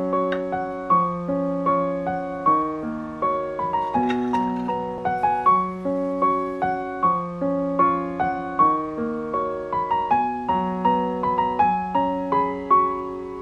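Background piano music: a steady run of notes, each struck and fading away.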